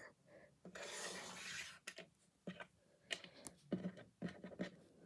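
Faint handling of small plastic Lego pieces on a table: a scraping rub lasting about a second, then a few light clicks and taps.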